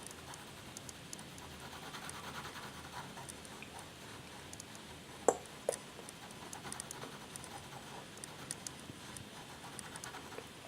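Faint scratching of a pigment liner pen on paper as it draws, with two sharp clicks about half a second apart midway through.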